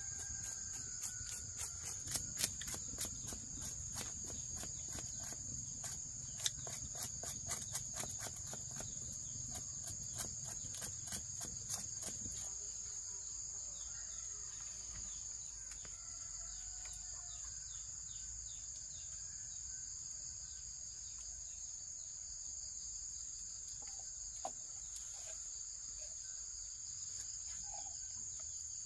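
Steady high-pitched chorus of insects, crickets, shrilling without a break on two close pitches. A quick run of sharp clicks sounds over it during the first twelve seconds, with a low hum that stops at about the same time.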